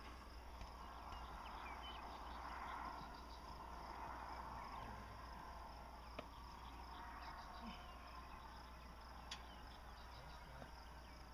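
Faint outdoor ambience with insects chirping and two light knocks, one about six seconds in and one about nine seconds in.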